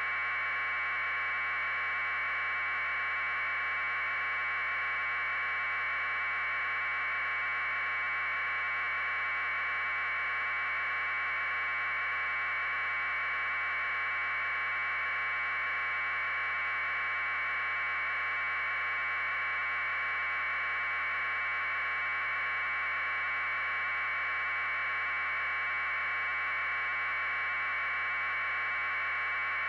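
Steady electronic hiss from the audio feed, unchanging throughout, with no other sound.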